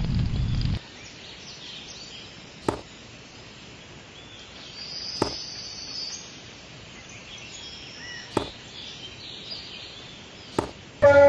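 A low rumble cuts off under a second in. After it comes quiet outdoor ambience with faint high chirps and four sharp clicks a few seconds apart. A loud train horn starts just before the end.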